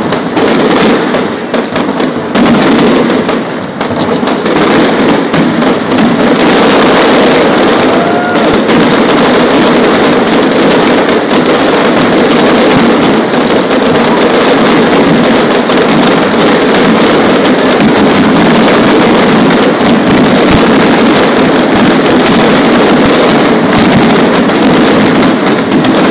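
Aerial fireworks in a dense, continuous barrage: many shells bursting on top of one another with no gaps between them. The sound stays near full loudness, with a short dip about three to four seconds in.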